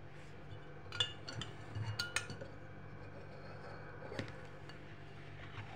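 Metal spoon clinking and scraping against a cup as yogurt is stirred, a few sharp clinks about a second in, around two seconds in and again near four seconds.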